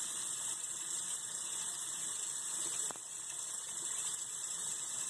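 Kitchen sink tap running, a steady hiss of water with a swab held in the stream; a single sharp click a little under three seconds in.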